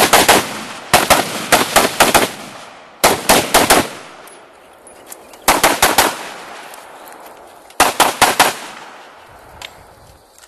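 Rapid live gunfire: five quick strings of shots, each string several shots fired in fast succession, with a pause of a second or two between strings as the shooter moves between targets.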